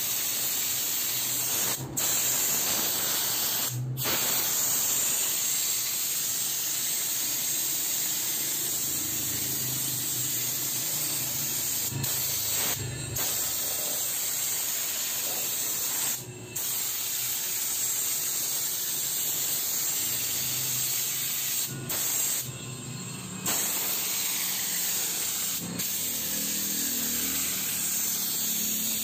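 INGCO air washing gun spraying a fine mist of water driven by compressed air: a steady hiss, broken by several short gaps where the spray stops and starts again.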